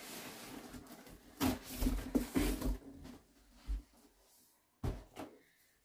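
Cardboard scraping and rustling as an air fryer's retail box is slid out of its shipping carton, followed by a few short dull knocks as the boxes are set down and moved.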